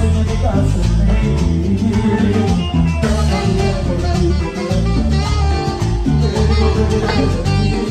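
Live salsa band playing an instrumental passage: electric bass, drum kit and Latin percussion driving a steady rhythm under saxophone.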